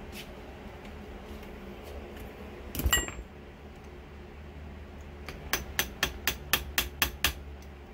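A screwdriver tip tapping quickly against the metal water pump plate in an outboard lower unit: about eight sharp metal-on-metal taps at roughly four a second, as the plate is worked loose. About three seconds in comes a single louder metal clank with a brief ring.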